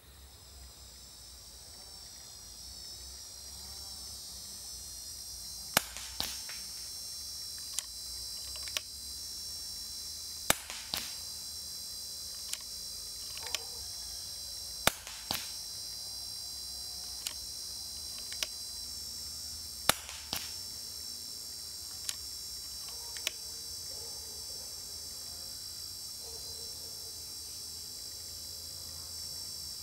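Four shots from a Daystate Red Wolf HP 5.5 mm (.22) PCP air rifle, each a sharp crack followed about half a second later by a fainter one. Between the shots come pairs of lighter clicks about a second apart as the side lever is cycled. A cicada buzzes steadily throughout, swelling in over the first few seconds.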